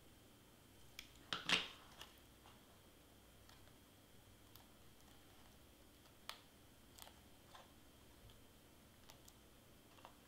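Scattered soft clicks and brief handling rustles from hot-gluing cardstock pieces, with one louder rustle about a second and a half in.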